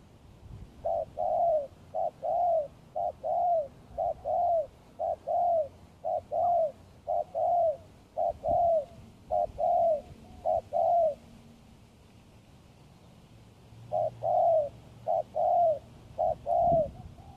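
Spotted dove cooing close by, most likely the caged decoy bird calling to draw in wild doves. Each phrase is a short coo followed by a longer one, repeated about ten times in a steady rhythm, then after a pause of about three seconds, three more.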